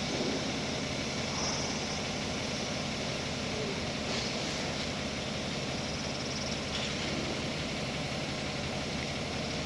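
Crawler construction machine's diesel engine idling steadily.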